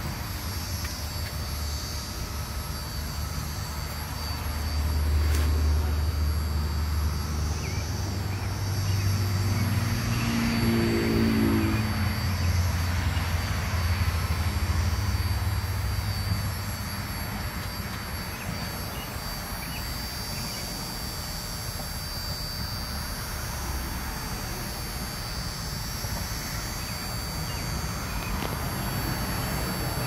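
A low engine rumble of a passing vehicle swells about four seconds in and fades by about seventeen seconds, its pitch falling as it goes by. Under it runs a steady high drone of 17-year periodical cicadas singing in the trees.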